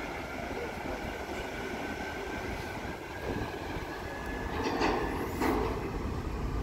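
Steady drone of the ferry's machinery heard from an open deck, with wind rumbling on the microphone and a faint high whine running through it; a louder rush of noise rises about five seconds in.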